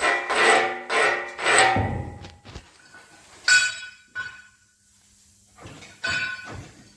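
Background music: pitched notes pulsing about twice a second, then thinning out to two separate ringing notes.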